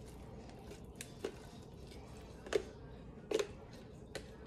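A utensil scraping and clicking against the inside of a mayonnaise jar as mayonnaise is dug out: four or five short clicks, the loudest a little past the middle, over a faint background.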